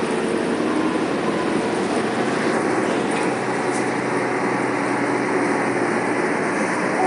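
Steady cabin noise on board a Volvo B9TL double-decker bus: its diesel engine running with a low, even hum under a constant rushing noise.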